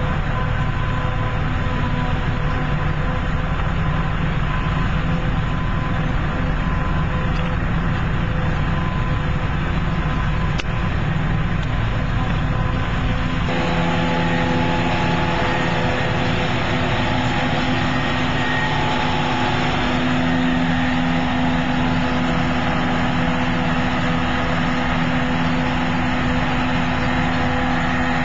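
Self-propelled Claas forage harvester chopping grass for silage, its engine and cutting gear running steadily, with a tractor pulling the trailer alongside. The machine sound shifts abruptly about halfway through.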